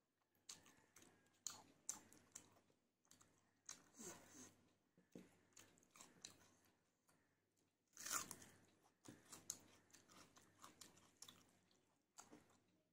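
A person chewing mouthfuls of rice and chicken curry eaten by hand: faint, irregular close-up chewing and biting sounds, the loudest bite about eight seconds in.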